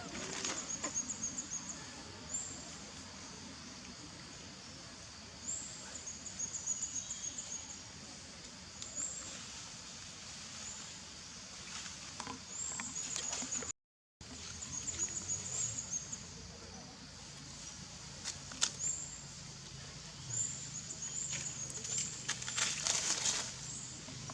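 A young animal's high-pitched, squeaky crying: short rising squeaks in quick runs, repeated every second or two, the cries of a baby kept from nursing. The sound cuts out for a moment about halfway through.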